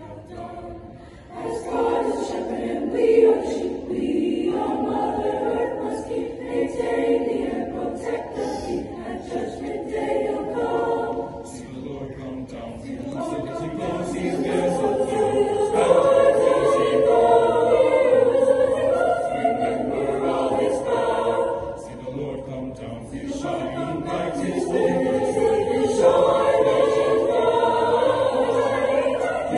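A large mixed choir singing, coming in louder about a second and a half in and swelling further about halfway through.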